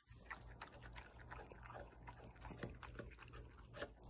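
A dog lapping and licking icy water from a small plastic container: faint, quick wet licks with small clicks, several a second.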